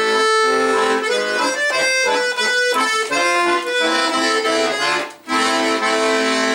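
Bayan, a Russian chromatic button accordion, playing a melody over chords with reedy sustained notes. There is a brief break about five seconds in, then a long held chord.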